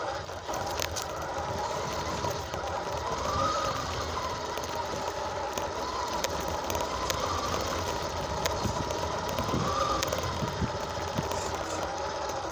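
Radio-controlled car driving, its motor whine rising and falling with speed over a rough rumble, with scattered clicks.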